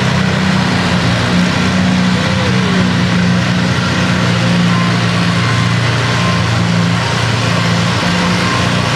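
Farmall tractor engine running steadily at low speed, its deep note holding even with no revving. A faint beep repeats on and off in the second half.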